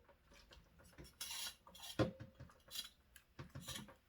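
Knife and metal utensils clicking and scraping while a pike is being cleaned: a few light knocks and clicks, with a short scraping hiss about a second in.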